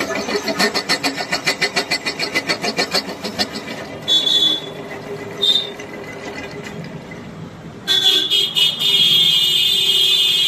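Boring head cutting on a milling machine: a fast, even chatter of about five beats a second, then two short high-pitched squeals, and a long steady squeal from the cutter near the end that cuts off sharply.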